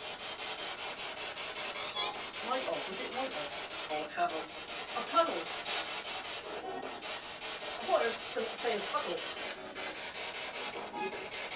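Spirit box sweeping through radio stations: a steady hiss of static chopped by the rapid scan, with brief voice-like fragments breaking through a few times.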